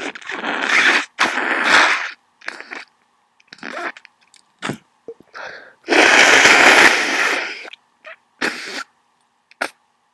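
A person with a bad cold sneezing and sniffling: two loud sneezes in quick succession at the start, a string of short sniffs, a longer loud burst about six seconds in, then more sniffs.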